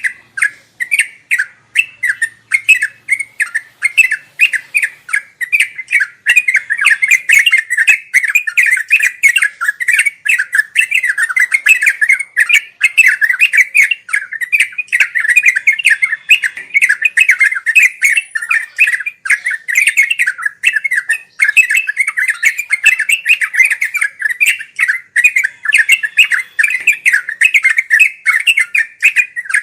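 Trucuk (yellow-vented bulbul) singing a continuous, rapid run of chattering notes with no pauses, the busy 'ngeropel' style of song.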